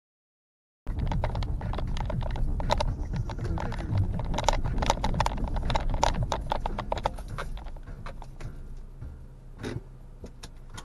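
Car driving on a rough dirt road, heard from inside the cabin: a low road rumble with many quick rattles and knocks from the bumps. It starts suddenly about a second in and grows quieter over the last few seconds as the car slows into the parking area.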